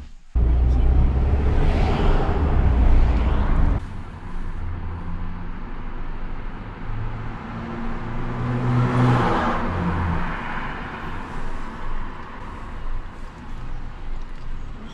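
A car driving, heard from inside the cabin: steady engine and road noise. It is loudest in the first few seconds, then drops and swells again around the middle.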